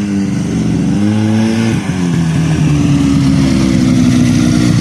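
Snowmobile engine running hard at high revs, its pitch dipping briefly about two seconds in, then holding high and steady.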